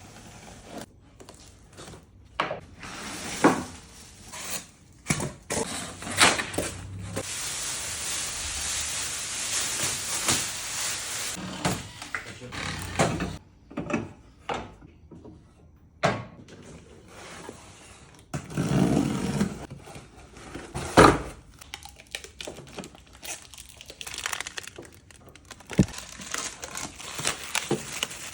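Hand work with wood and tools: repeated knocks and clatter of wood and tools being handled, with a stretch of steady noise lasting about six seconds in the middle and a shorter one later.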